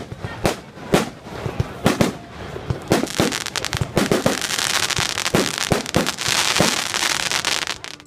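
Aerial fireworks bursting overhead: a run of sharp bangs a couple of times a second, then from about three seconds in a dense crackling hiss under more bangs, cutting off suddenly just before the end.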